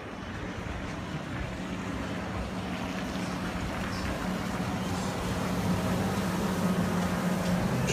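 Motorboat engine running with a steady low hum that grows louder as the boat comes closer.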